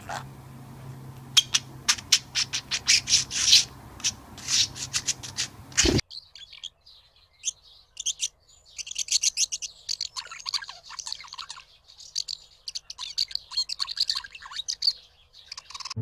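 Budgerigars chirping and warbling: first a run of loud, sharp chirps over a low steady hum, then, after a sudden cut about six seconds in, a softer, continuous warbling chatter.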